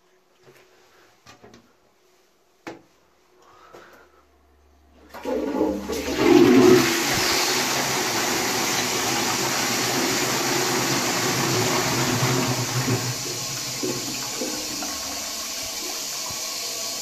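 Shires Rubberwell high-level cistern flushing into a Twyford Classic pan. A few small knocks come first; about five seconds in the water comes down with a sudden loud rush and swirls through the bowl. After about eight seconds it eases to a quieter, steady flow.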